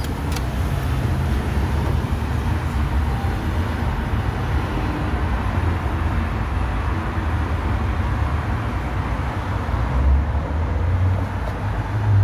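Steady city street traffic noise, a continuous low rumble of passing vehicles.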